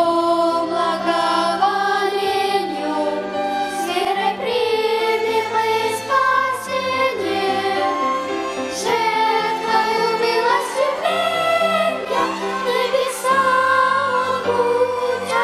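Violin ensemble playing a melodic instrumental passage with sustained, wavering notes.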